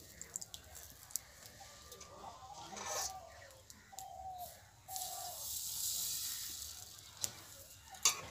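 Rice batter hissing faintly as it is ladled onto the hot clay chitoi pitha mould, with a few small clicks of the ladle. Chickens cluck briefly in the background.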